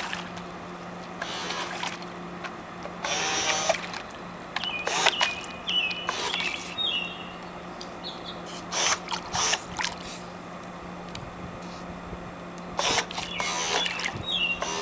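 Small electric motors of a remote-controlled boat switching on and off in several short bursts, each a second or less, as bang-bang throttle control drives the propellers and churns the water. A steady low hum sits underneath.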